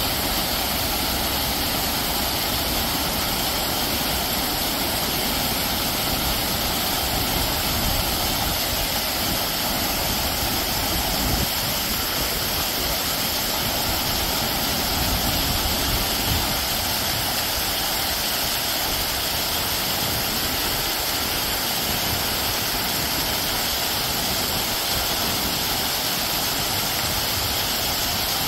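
Water cascading down a wide stepped rock-wall waterfall: a steady, even rush of falling water.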